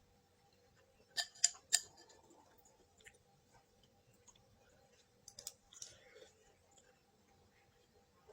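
Eating sounds close to the microphone: a quick run of three sharp clicks a little over a second in, and another short cluster of clicks around five and a half seconds in.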